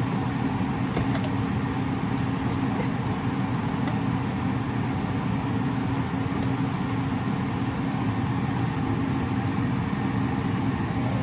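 Chopped onions and garlic frying gently in oil in a pan on a gas stove, under a steady low hum.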